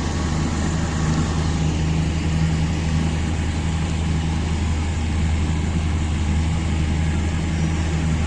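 A motor engine running steadily at constant speed, a low even hum under a broad rushing noise.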